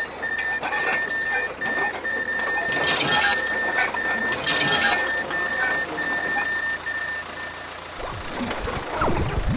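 Electronic railroad crossing warning signal: a single high beeping tone pulsing unevenly, with two short bursts of hissing noise in the middle. Near the end the beeping stops and a low rumbling starts.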